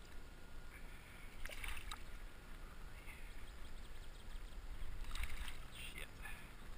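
Water splashing as a hooked bass thrashes at the surface and is handled at the waterline, in two bursts, about one and a half seconds in and again about five seconds in, over a steady low rumble.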